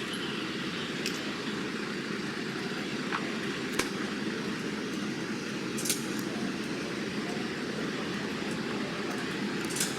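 Steady low rumble of vehicle noise, broken by a few short sharp clicks.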